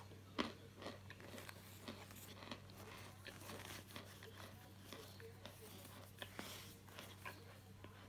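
Chunks of dried starch crunching and crumbling, a quiet string of soft, irregular crunches and crackles.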